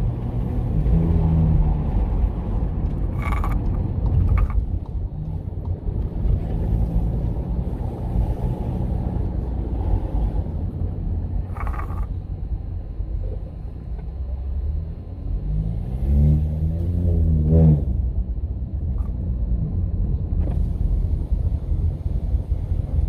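Cabin sound of a Volkswagen Jetta 1.4 turbo driving: a steady low engine and road rumble. The engine revs up and back down about sixteen seconds in. A few short knocks come in between.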